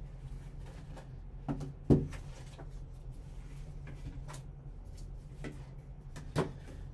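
A sealed sports-card box being handled and opened by hand: scattered soft clicks and taps of cardboard and packaging, the loudest a sharp knock about two seconds in, over a steady low hum.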